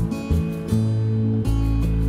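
Background music led by an acoustic guitar, with sustained low bass notes.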